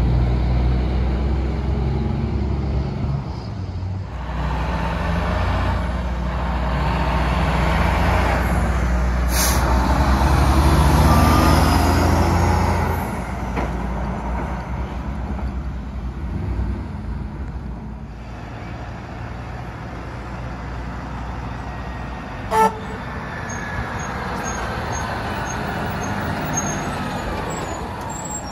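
Diesel semi-trucks passing on a town street, their engines rumbling, loudest about ten seconds in as a rig goes by close. About two-thirds of the way through comes one very short horn toot.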